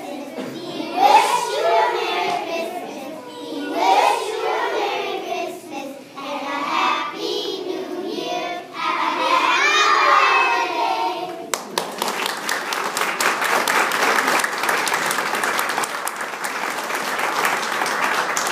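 A group of young children singing together for about the first eleven seconds, then the audience breaks into steady applause that runs on to the end.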